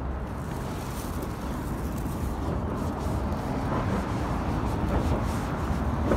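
Road traffic on a city street: a steady rumble of passing cars.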